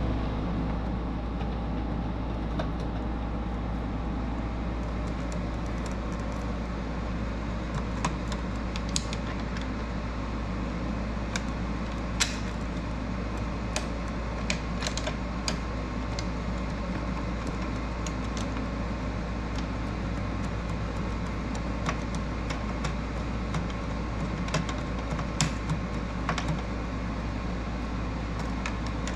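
Scattered light clicks and taps of fingers working small screws and a carbon fibre grille insert against a car's plastic front grille, over a steady low background hum.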